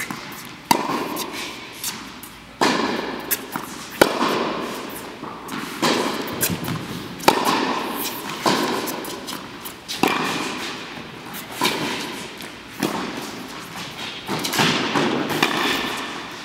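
Tennis rally: racket strikes and ball bounces crack about every one and a half seconds. The near player's racket is an Angell TC95 strung with polyester. Each hit echoes in a large indoor hall.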